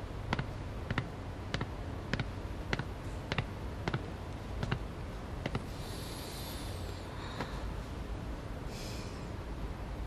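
A clock ticking steadily, a little under two ticks a second, over a low hum, with a brief rustle of cloth about six seconds in and again near nine seconds.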